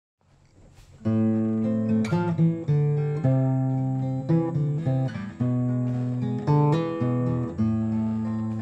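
Acoustic guitar played slowly as a song's introduction, starting about a second in, with notes and chords changing every half second or so and ringing on.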